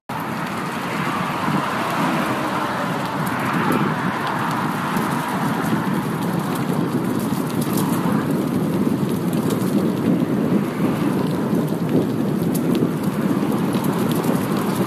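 Bicycle ridden fast over a rough dirt woodland track: steady rushing noise of tyres on the uneven surface, with small rattles and clicks from the bike.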